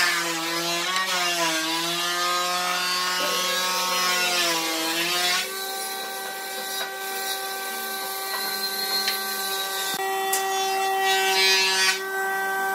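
Wooden spatula scraping and smearing glue along the edges of wooden boards: a rubbing scrape with a wavering squeak for the first five seconds or so, and again briefly near the end, over a steady hum.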